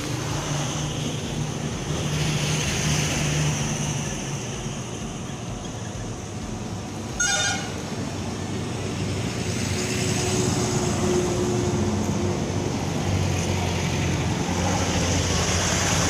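Roadside traffic: motor vehicles running past with a continuous engine hum that swells and fades, and a single short vehicle-horn toot about seven seconds in.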